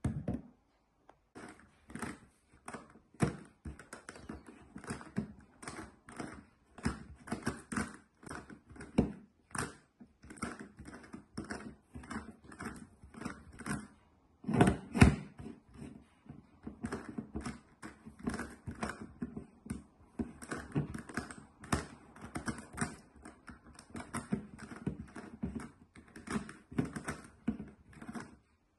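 GAN Megaminx, a plastic twelve-sided twisty puzzle, being turned with one hand: quick, irregular clicking and clacking of its layers, several turns a second, with a louder clack about fifteen seconds in.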